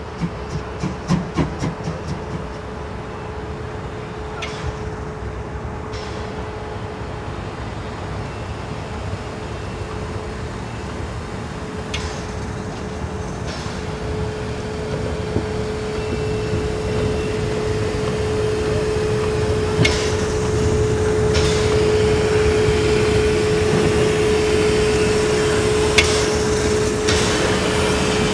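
Narrow-gauge steam locomotive: a few exhaust chuffs that die away about two seconds in, then the locomotive drawing closer with a steady humming tone that grows louder, and a few scattered clanks.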